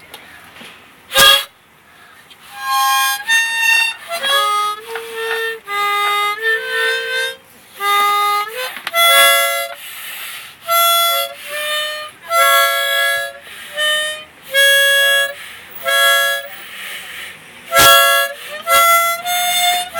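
A harmonica played as a run of short, separate notes and chords, about one a second. There is a sharp knock about a second in and another near the end.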